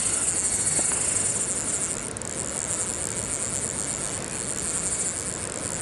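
A high, steady chorus of insects chirping, with a fine rapid pulse.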